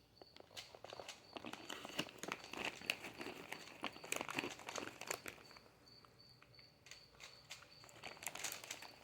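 Plastic layers of a 3x3 Rubik's cube being turned fast during a speed solve, a quick irregular clicking and clacking that eases briefly around the middle.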